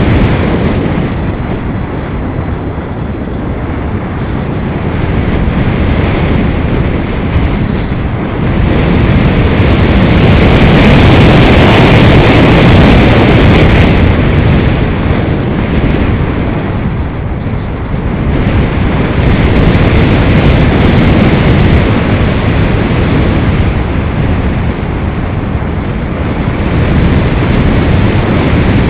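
Loud airflow noise rushing over the microphone of an EasyGlider Pro RC glider's onboard camera in flight, swelling and easing in long waves, loudest a little before the middle.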